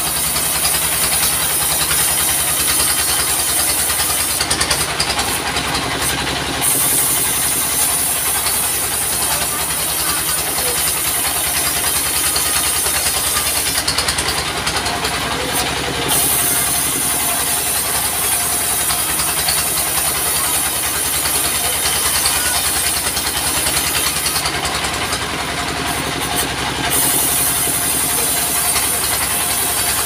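Stationary diesel engine powering a bandsaw sawmill, running steadily with a fast, even beat and a constant hiss over it.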